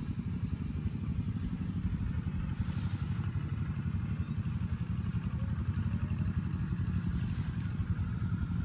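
A steady low drone of an engine running evenly.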